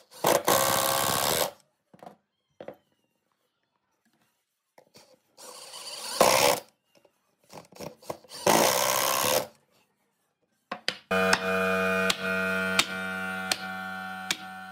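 A Hitachi cordless driver running in three short bursts, each about a second long, driving long wood screws into pine. About eleven seconds in, background music with held notes and a steady beat takes over.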